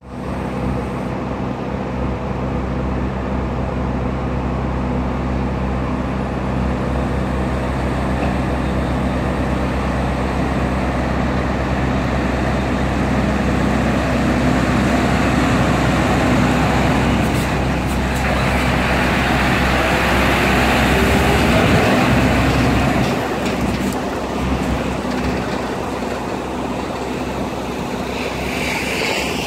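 Scania V8 diesel truck engine pulling a heavy low-loader trailer away from a standstill. It runs steadily, grows louder as the truck passes, rises in pitch as it accelerates about two-thirds of the way in, then eases off as it draws away.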